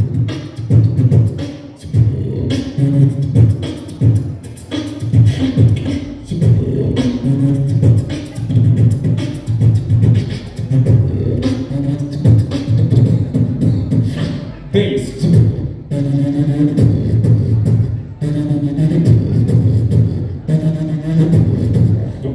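Human beatboxing into a handheld microphone: a steady rhythm of sharp vocal drum clicks over heavy bass tones.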